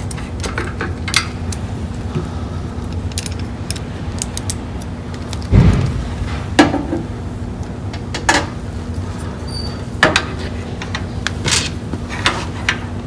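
Metal hand tools (wrenches and Allen keys) clinking and being handled against metal machine parts while a bolt is undone: scattered sharp clicks every second or two, with a duller, louder knock about five and a half seconds in, over a steady low hum.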